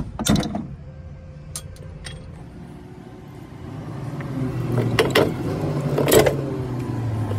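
A last hammer tap on the strut's stabilizer link pin, then a few light metal clicks and two or three clunks as the strut is worked by hand. A low steady engine hum comes in about halfway.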